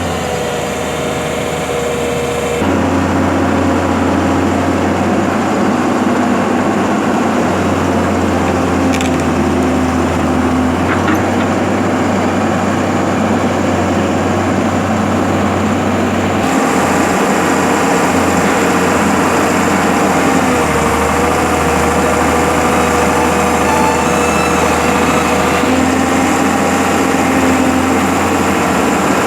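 Heavy machinery's engine running steadily, its sound changing abruptly about three seconds in and again past the middle.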